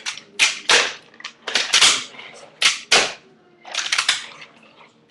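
Handboard clacking on a ramp or ledge as tricks are tried: a series of sharp clacks from the board's tail popping and its wheels and deck slapping down, in small clusters with short bits of rolling between.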